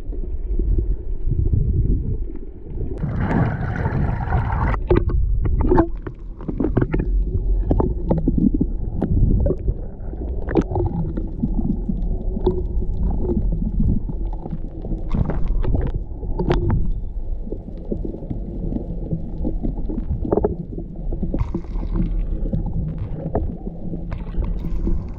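Underwater sound picked up by a camera held beneath the surface: a muffled low rumble with bubbling and many scattered sharp clicks and crackles.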